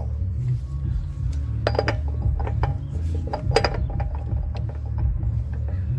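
Metal clinks and clicks of a large 2 13/16-inch socket and 1-inch-drive breaker bar being worked onto a truck's front hub lock nut, several ringing clinks clustered in the middle, over a steady low rumble.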